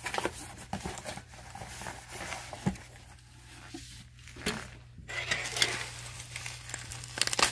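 Handling noises of unpacking: plastic wrapping rustling and crinkling, with short knocks and light clinks as a wrapped item is lifted out of a cardboard box and set on a table. A low steady hum runs underneath.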